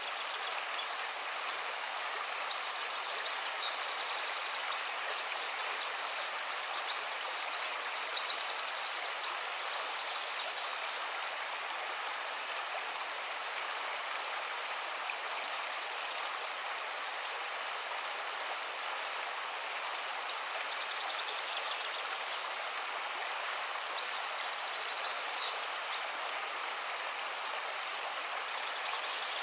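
River water flowing in a steady rush, with bursts of high, rapid chirping calls coming and going over it.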